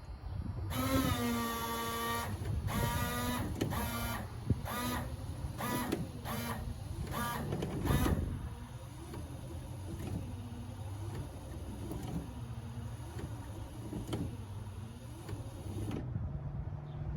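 Replacement windshield washer pump on a 1986 Chevy C10 whining in repeated squirts: one long run about a second in, then shorter and shorter bursts. A softer wavering motor sound and a steady low hum run on until it cuts off near the end. The new pump runs quietly, without the roaring and growling of the worn one it replaced.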